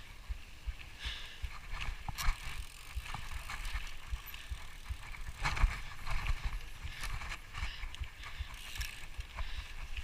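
Rough movement along a trail: irregular knocks and rattles, the sharpest about two seconds in and again halfway through, over a constant low rumble of wind on the microphone.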